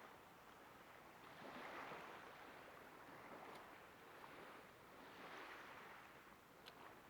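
Faint small waves washing on the shore, swelling and fading twice, with a couple of tiny clicks.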